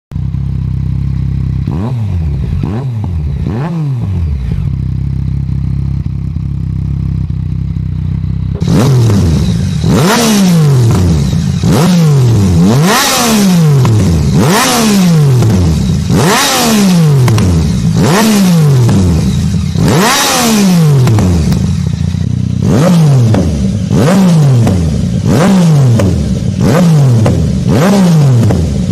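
Yamaha MT-09 three-cylinder engine through an aftermarket exhaust, idling with a few short blips, then revved in a quick, regular series of throttle blips about once a second, each rev falling back toward idle. It gets louder about a third of the way in.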